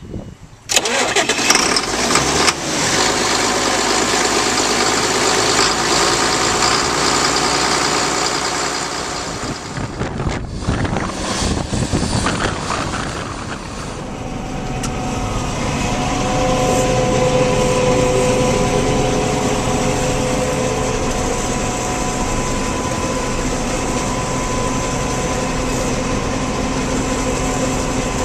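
Heavy diesel harvest machinery running loudly, cutting in abruptly about a second in. It dips briefly partway through, then runs on steadily with a high whine over the engine.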